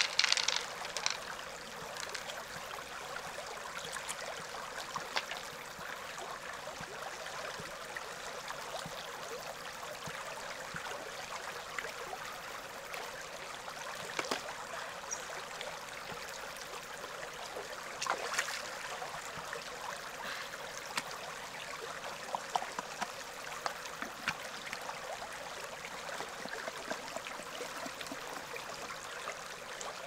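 Shallow river water flowing and trickling steadily, with occasional short splashes and knocks scattered through it.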